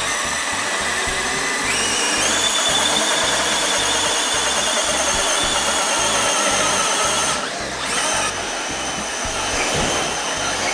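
Two Traxxas X-Maxx electric RC monster trucks at full throttle, their motors whining steadily under heavy load as they strain to tow a car. The whine steps up in pitch about two seconds in and drops briefly about seven and a half seconds in.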